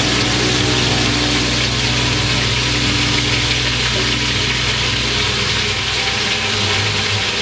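Mutton pieces frying in oil in a pressure cooker, a steady sizzling hiss.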